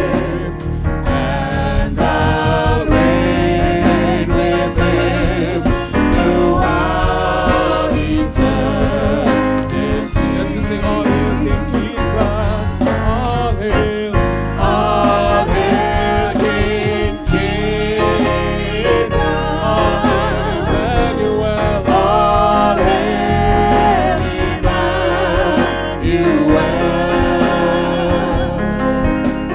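Church worship team singing a gospel praise song with band accompaniment, the voices holding long wavering notes over a steady beat.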